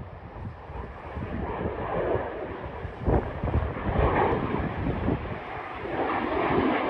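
Aircraft taking off, its engine noise swelling steadily louder, with wind buffeting the microphone.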